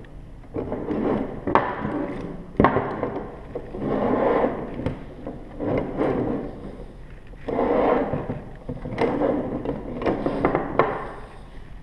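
Three-strand polypropylene rope drawn through two triple-sheave tackle blocks in about six short pulls, the sheaves turning and the rope rubbing, while the blocks are pulled tight together. A few sharp knocks of the metal blocks on the wooden tabletop come in between.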